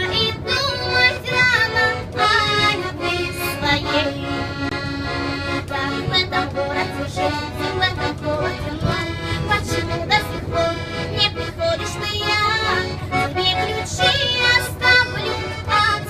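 A young woman singing a song in Russian over a steady, chord-playing instrumental accompaniment.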